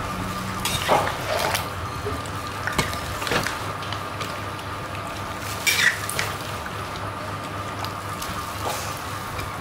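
A metal ladle stirring a large aluminium pot of thick chicken curry with chunks of potato and sweet potato: wet sloshing of the stew and short scrapes of the ladle against the pot, the loudest about a second in and again about six seconds in, over a steady hum.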